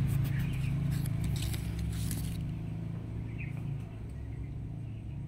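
A steady low motor hum, easing off slightly after about four seconds. Over it in the first two seconds come light crackling rustles of grape leaves brushing against the phone.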